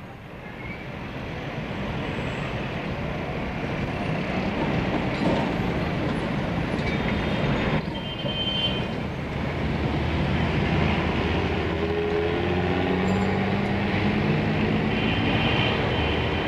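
City street traffic: a tram rumbling along, growing louder over the first few seconds. After a break about eight seconds in come buses' engines running in traffic, with a few short high toots.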